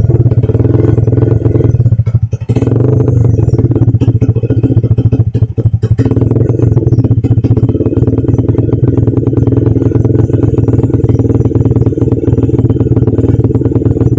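Yamaha Vixion 150cc tuned single-cylinder four-stroke engine through a Bintang full exhaust with a 3-inch silencer, running loudly and steadily at idle with brief dips about two and five and a half seconds in. The exhaust leaks at the header pipe, which the owner says takes some of the bark off the sound.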